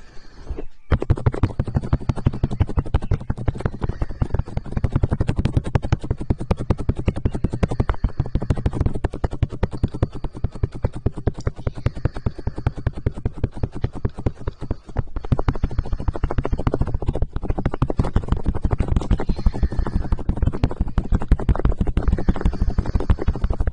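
Fast, even scratching strokes rubbed right against an ASMR microphone, many a second, starting about a second in with a brief break near the middle.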